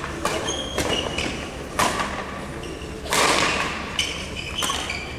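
Badminton rackets striking the shuttlecock in a rally, several sharp hits echoing around a large sports hall, the loudest a little after three seconds in. Short high squeaks of shoes on the court floor come between the hits.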